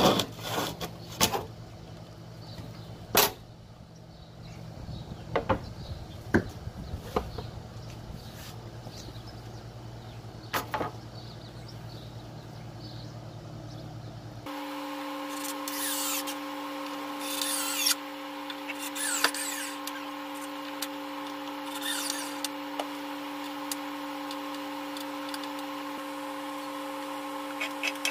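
Wood being knocked and handled, with scattered sharp clicks over a low hum. After an abrupt cut about halfway in, a steady machine hum begins, with a few brief scraping bursts on top.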